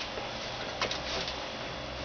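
A few light clicks and knocks a little under a second in, over a steady low hum.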